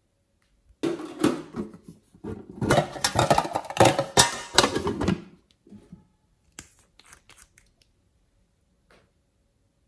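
A red metal tin box handled close to the microphone: crackly scraping and clatter start about a second in and run to about five seconds, then a few light taps.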